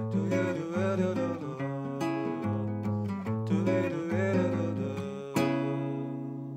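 Nylon-string acoustic guitar playing a xote rhythm on the chords C#m7, A7 and G#7. About five seconds in it ends on a single struck chord that rings out and fades.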